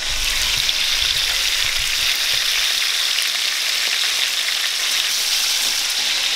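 Two whole jack crevalle frying in hot oil in a skillet, a steady, even sizzle.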